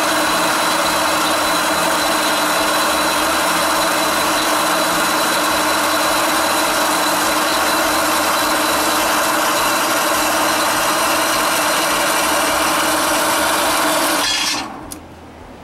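Horizontal metal-cutting bandsaw running steadily as its blade cuts through a rusty flat steel bar, then cutting off abruptly about a second before the end.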